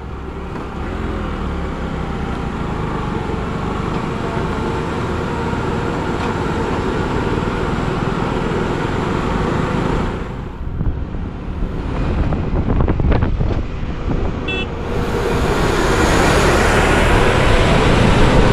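Road traffic noise: vehicle engines and tyres on the road, running steadily, with a short horn beep about three-quarters of the way through.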